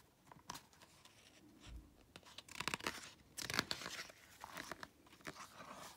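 Paper pages of a picture book being turned by hand: a few short rustles and crinkles, the loudest about two and a half and three and a half seconds in.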